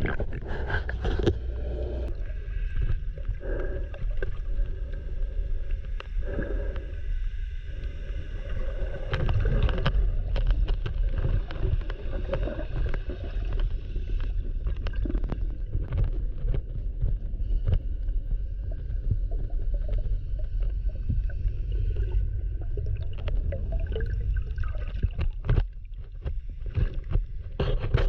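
Muffled underwater sound through a camera housing: a steady low rumble with scattered clicks and gurgling.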